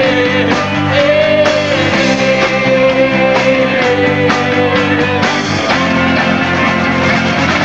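Rock band playing live: electric guitar, bass and drum kit. A long high note is held over the chords, bending up briefly about a second in and dropping away after about five seconds.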